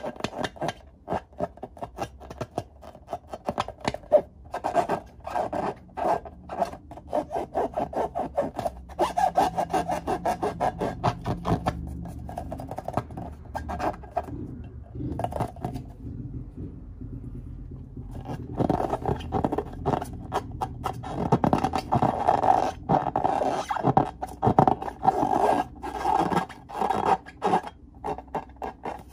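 Filled latex balloons squeezed and rubbed between the hands: a dense run of quick rubbing and scraping strokes on the rubber skin, easing off briefly a little past halfway.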